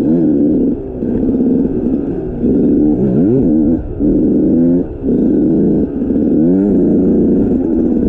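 Dirt bike engine running under load as it is ridden, its pitch rising and falling with the throttle, with quick upward revs about three seconds in, near five seconds and past six seconds.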